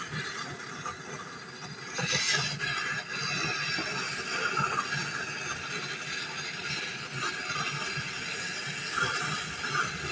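Gas torch flame hissing steadily as it heats the tube joints on a refrigerator compressor to unsolder them; it gets louder about two seconds in.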